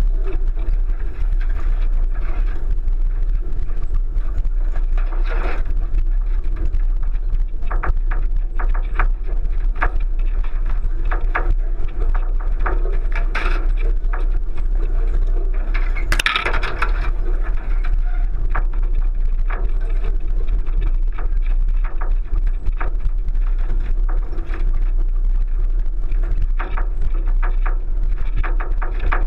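A 1999 Subaru Forester driving over a rough, rutted dirt track, heard from a roof-mounted camera. Under a steady low rumble come frequent irregular knocks, clatters and crunches from tyres, suspension and body working over the uneven ground, with a denser burst of crunching about 16 seconds in.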